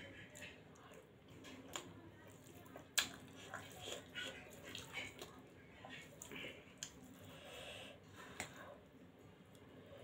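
Close-up chewing and soft wet mouth sounds of someone eating. A few sharp clicks of a metal fork against a steel plate come as noodles are twirled and lifted, the strongest about three seconds in.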